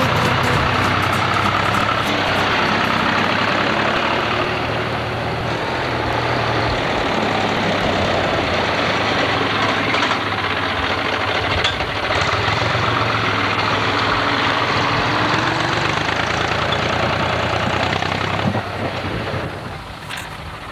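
Tractor engine running steadily as the tractor drives along a road. It becomes quieter near the end.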